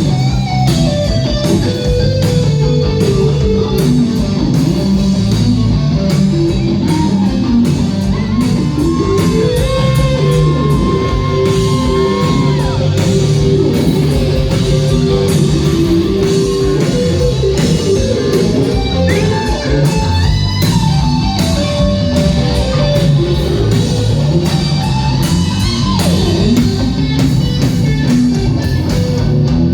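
Live rock band playing loudly: an electric guitar lead holds and bends notes over the drums.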